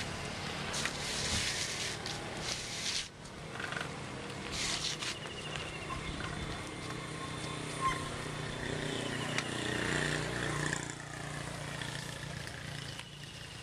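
Outdoor road noise heard while riding a bicycle: a steady rush of wind and distant traffic, with a louder vehicle passing about nine to eleven seconds in.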